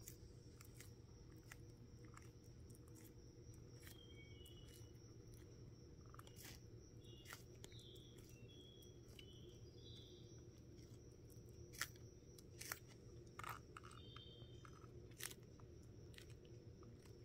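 Hermann's tortoise biting and chewing crisp lettuce leaves: scattered small crunches and tearing clicks, a few louder bites coming close together in the second half.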